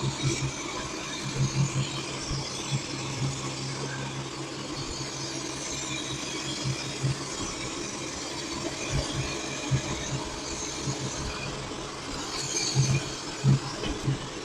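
Robot vacuum cleaner running a cleaning cycle: a steady motor and fan noise with a low hum that comes and goes, and a few knocks near the end.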